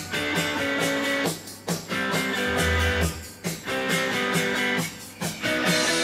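Background music: a guitar-led instrumental track with a steady beat.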